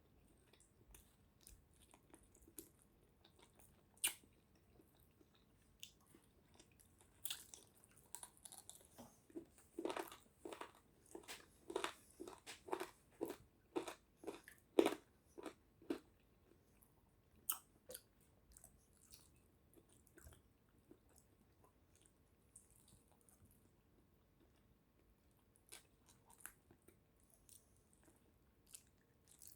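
A person chewing food, faint, with scattered small mouth clicks and a steady run of chewing strokes about two a second through the middle.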